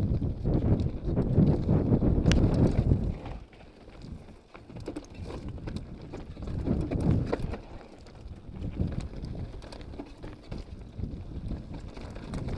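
Mountain bike descending a loose slate and rock trail: tyres crunching and rumbling over stones, with frequent sharp clicks and knocks from the bike as it rattles over the rocks. Loudest for the first few seconds, then quieter.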